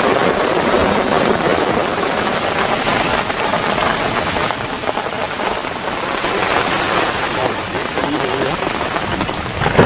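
Heavy rain pouring down in a steady, loud hiss, with faint voices near the end.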